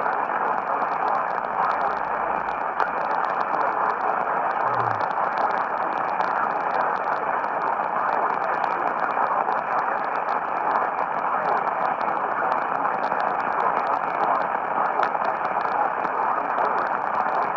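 AM radio static: a steady hiss with scattered crackles and no programme coming through.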